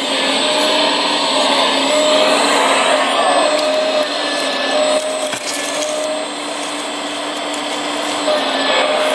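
RC4WD EarthDigger360 model excavator working: its Servonaut SMB sound module plays a running excavator engine through its speaker over the Jung hydraulic pump's motor whine. Short higher whines come and go every second or two as the arm and bucket move.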